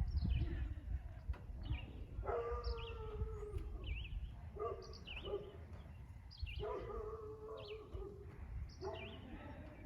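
Drawn-out, wavering animal calls, about a second long, come twice with shorter ones between, over repeated short falling chirps of small birds and a low rumble of wind on the microphone.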